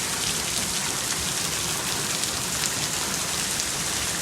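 Steady rain falling: an even, dense hiss with many single drops ticking through it.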